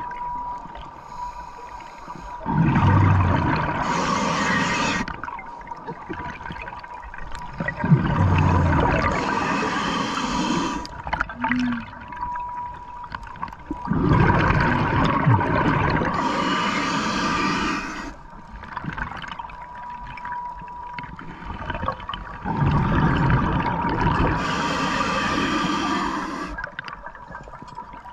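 Scuba diver breathing through a regulator underwater: four exhales, each a few seconds of loud bubbling, about every six seconds with quieter stretches between.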